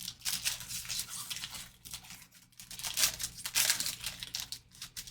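Foil wrapper of a 2024 Donruss football card pack crinkling and tearing as it is opened by hand, in irregular bursts.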